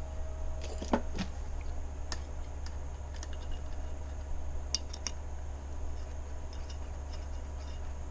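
Scattered light metal clicks and clinks of a gearbox adapter housing being fitted to a pump and its bolts being started by hand, with a few sharper taps about one, two and five seconds in. A steady low hum runs underneath.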